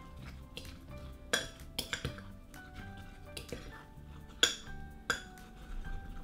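Metal fork stirring thick batter in a glass mug, clinking against the glass several times; the sharpest clinks come about a second and a half in and again around four and a half seconds. Soft background music runs underneath.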